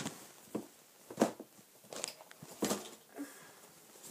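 A few short, scattered rustles and bumps close to the microphone, about five in all with quiet between: handling noise.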